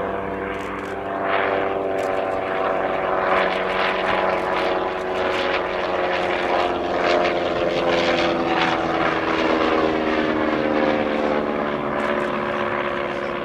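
Sopwith Triplane's Clerget 9B nine-cylinder rotary engine and propeller running steadily in flight as the biplane passes in a display. The drone grows louder about a second in and eases off near the end, dipping slightly in pitch.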